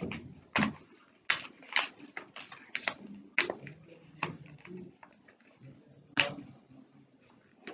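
A sheet of paper being folded and creased by hand for an origami model: irregular sharp crinkles and crackles, the loudest about six seconds in.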